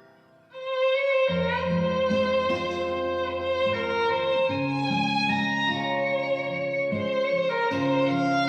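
Instrumental music: a bowed violin melody over sustained string and guitar accompaniment, coming in after a brief hush about half a second in.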